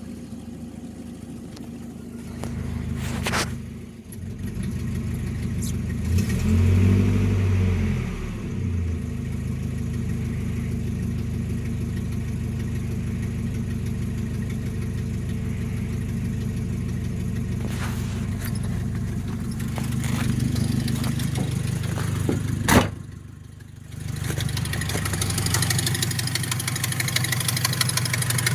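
Nissan 720 pickup engine running after a cold start. It revs briefly about six seconds in, then idles steadily. Near the end there is a sharp click and the engine note drops away for about a second before it runs again, an unsteady idle that the owner puts down to a failing fuel pump.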